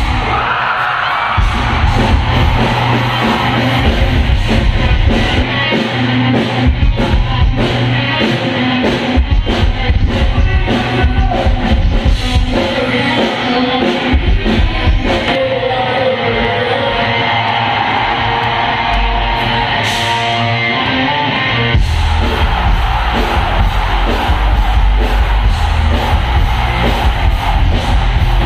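Live rock band playing loudly, with a singer and crowd yelling along, recorded from within the audience. The drums and bass thin out through the middle and come back in full about two-thirds of the way through.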